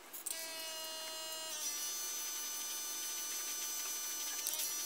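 Airbrush spraying orange paint onto a clear plastic crankbait blank: a steady hiss of air with a motor whine whose pitch shifts about a second and a half in.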